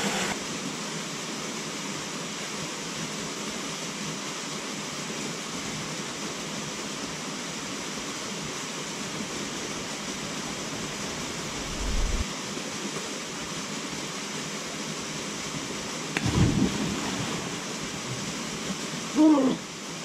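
Small waterfall pouring into a rock pool: a steady rush of falling water. A brief low thump partway through, and a few short, louder sounds near the end.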